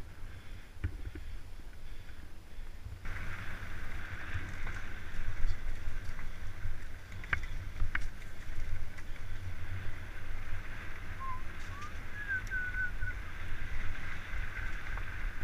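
Wind buffeting the microphone with a steady low rumble from a fast ride along a dirt path, a brighter hiss coming in about three seconds in. A couple of short clicks come about halfway through, and a bird gives a few short chirps a little later.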